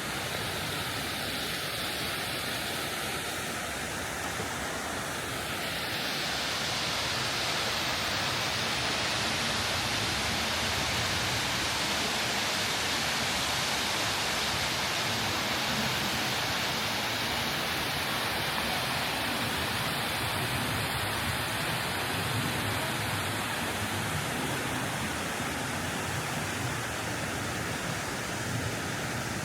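Steady rush of running water, growing louder about six seconds in and easing off again in the second half.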